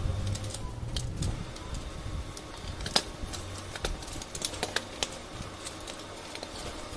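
Clicks and knocks of the plastic and metal parts of a laser printer fuser assembly being handled and set down on a tiled floor. There is one sharper knock about three seconds in and a quick run of small clicks a little after.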